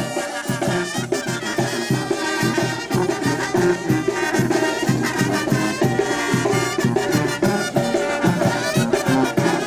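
Mexican banda, a brass band, playing a lively tune: brass instruments carrying the melody over a steady beat.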